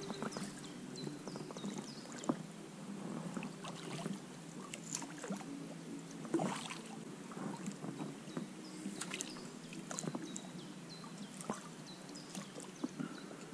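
Small boat drifting on a river: water splashing and lapping with scattered irregular knocks and clicks, the loudest about two seconds in and again after six seconds.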